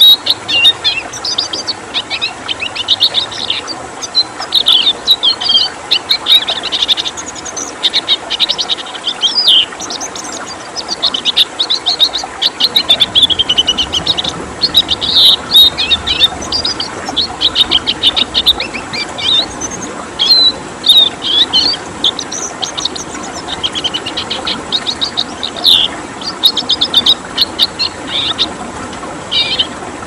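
Red siskin singing: rapid twittering phrases and fast trills in quick, nearly unbroken bursts, over a steady background rush of flowing water.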